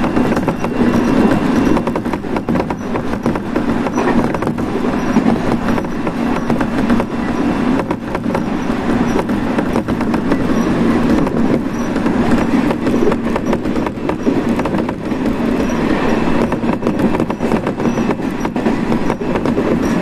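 Running noise of a train heard from inside the passenger car: a steady rumble of wheels on the rails with a fine clatter over it, going on without a break.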